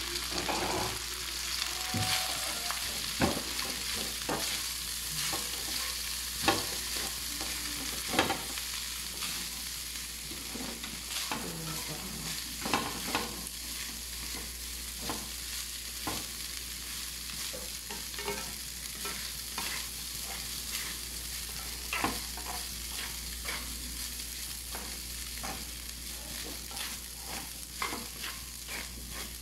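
Cooked rice being stir-fried in a wok with oil and browned garlic: a steady sizzle from the hot oil, with irregular scrapes and taps of two spatulas against the pan as the rice is turned and tossed.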